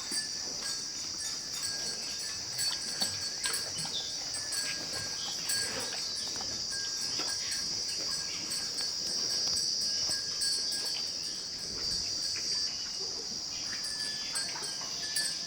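A steady, high-pitched drone of insects, crickets or cicadas, with scattered light clinks and knocks, like bells or chains on farm animals.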